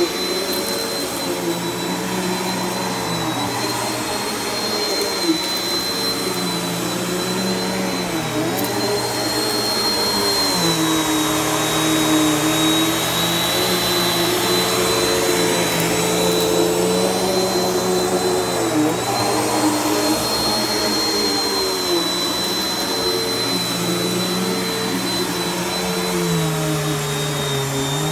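Bissell PowerForce upright vacuum cleaner running on a thick shag rug, with a steady high whine over the motor's hum. The motor's pitch dips and recovers every few seconds.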